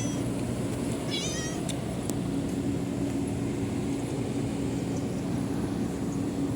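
A cat gives one short, high-pitched, wavering meow about a second in, over a steady low hum.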